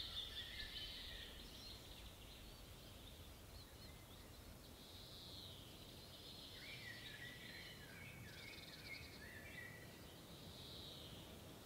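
Songbirds singing: quiet, overlapping phrases of high chirps and trills, some falling in pitch, over a faint low rumble.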